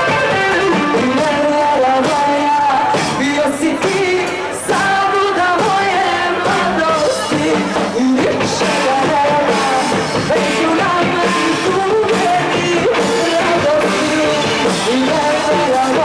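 A woman singing into a microphone with a band, an electric guitar among the instruments.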